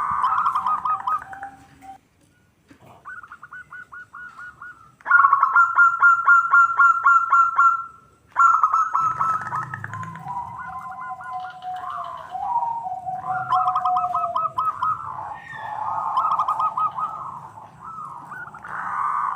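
Zebra doves (local perkutut) cooing in fast trains of short, staccato notes, with several birds calling over one another. There is a brief lull about two seconds in, and the loudest, fastest run of notes comes from about five to eight seconds.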